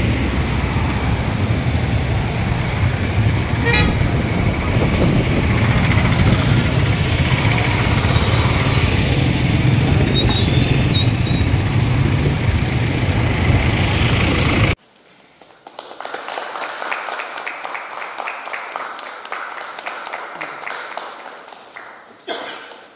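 Motorcycles and cars passing in street traffic, their engines running with a loud, steady low rumble and short horn toots. About fifteen seconds in the sound cuts abruptly to a quieter room, where rapid clicking goes on for several seconds.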